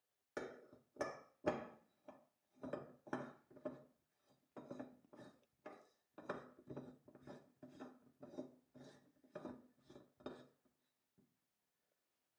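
Polished brass barrel of an antique beer hand pump being screwed down onto its threaded brass base by hand: a series of short metal-on-metal grating twists, about two a second, each with a faint ring. They stop near the end.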